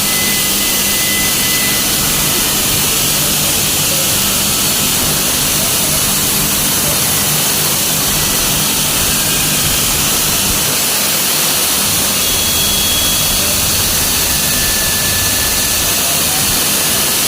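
BCF yarn production and folding machine running: a loud steady hiss over a low hum.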